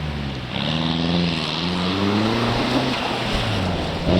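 Rally car engine accelerating hard through the gears, its pitch climbing and falling back at each change. A sharp crack comes near the end.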